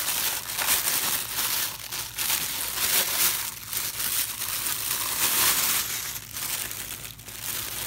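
Clear plastic packaging bag crinkling and rustling as it is handled and pulled off a blue plastic dust-collection hood.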